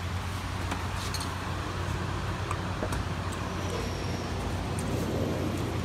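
Steady low mechanical hum of background shop machinery, with a few light clicks from handling the metal oil filter housing.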